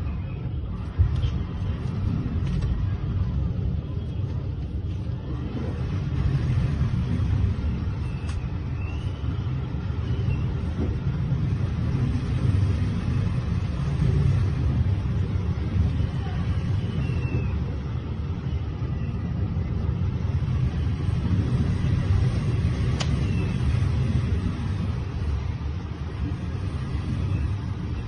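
Strong typhoon wind blowing: a steady low rumble that swells and eases.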